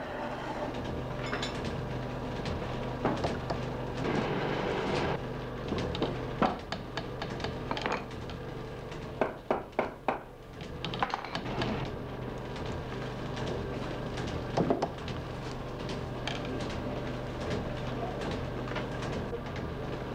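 Steady hum of polishing machinery in a scissor-grinding workshop, with irregular metallic clanks and knocks as the polishing bench is refitted by hand. There is a quick run of knocks about halfway through.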